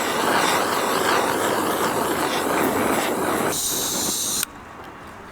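A loud, steady hiss that cuts off suddenly about four and a half seconds in, leaving a much quieter background.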